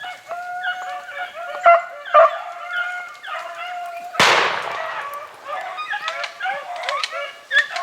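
A pack of beagles baying on a rabbit's trail, several dogs giving overlapping drawn-out cries. About four seconds in a single gunshot cracks out and echoes.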